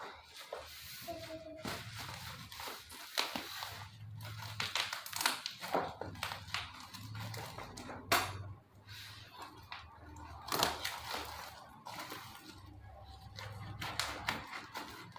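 Packaging crinkling and rustling as a microphone kit is handled and unpacked, with irregular knocks and clicks.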